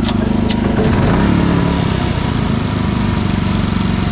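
Ryobi 3400-watt inverter generators running steadily. The engine note shifts about a second in, then settles.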